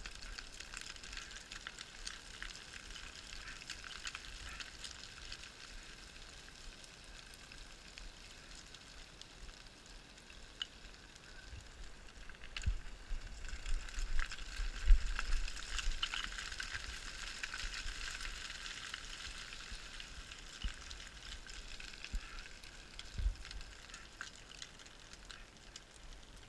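Faint hissing crackle of loose scree stones trickling and clattering as a climber comes down a steep scree slope, growing louder for a few seconds about halfway through, with a few low knocks.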